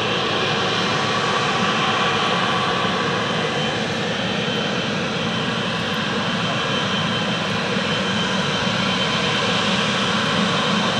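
Boeing 777-300ER's two GE90-115B turbofans running at low taxi power as the airliner turns onto the runway: a steady rush of jet noise with a constant whine.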